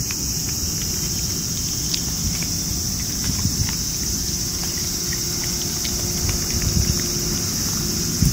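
Steady high-pitched drone of a summer cicada chorus, with wind rumbling on the microphone. Faint small clicks of a cat chewing and licking wet food from a metal bowl are scattered through it.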